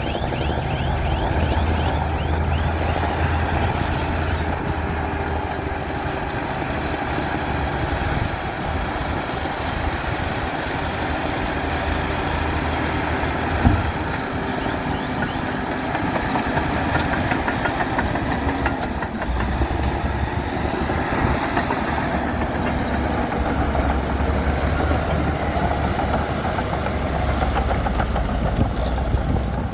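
Komatsu D60P bulldozer's diesel engine running steadily as it pushes sand, with a single sharp knock about fourteen seconds in.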